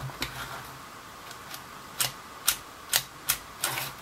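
A handful of short, sharp plastic clicks at uneven intervals from the controls of a pistol-grip RC transmitter being worked by hand. No motor or servo sound answers them: the car is not connecting to the transmitter.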